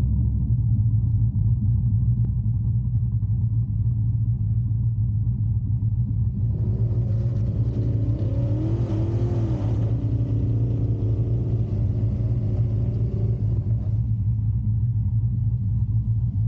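LS1 Camaro's 5.7-litre V8 idling with a steady low rumble. Midway, a second vehicle's engine swells and fades over several seconds above it.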